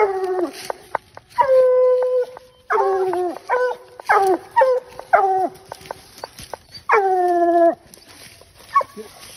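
Coonhounds baying treed at the foot of a tree: a long drawn-out bawl, then a run of short choppy barks from more than one hound, then another long bawl. It is the tree bark, the sign that the hounds have treed their game.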